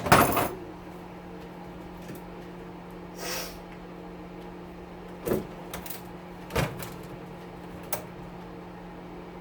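Metal oven panels and parts being handled during disassembly: a loud clatter at the start, a short scrape about three seconds in, then a few sharp knocks, over a steady low hum.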